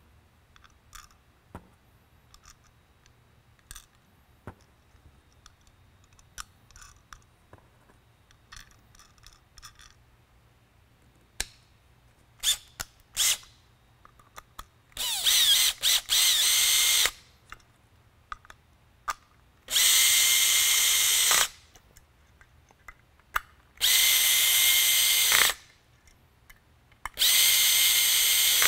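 Power drill/driver running in four short bursts of about one and a half to two seconds each, driving the screws that hold the lens into the PAR-36 LED lamp's housing. The bursts come in the second half, after light scattered clicks.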